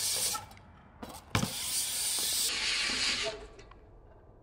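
BMX bike tyres hissing as they roll over a concrete bowl, with a sharp knock about a second and a half in. The hiss drops away about half a second in, returns with the knock, and fades out near the end.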